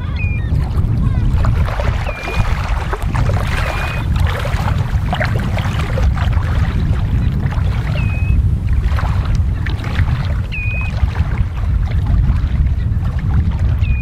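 Rubber boots wading through shallow seawater, with repeated sloshing and splashing as the legs push through. Wind on the microphone adds a steady low rumble, and a bird gives a short, high, up-hooked call about five times.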